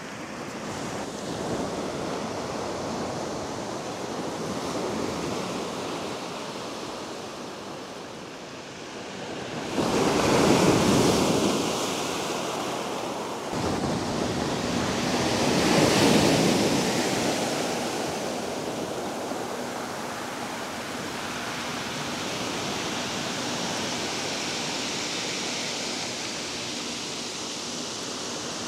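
Sea waves breaking and washing up a sand-and-shingle beach, with two louder surges about ten and sixteen seconds in.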